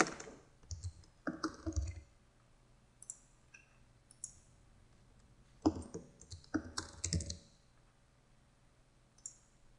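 Computer keyboard being typed on, faint, in two short runs of keystrokes, the first at the start and the second about six to seven seconds in, with a few single clicks between.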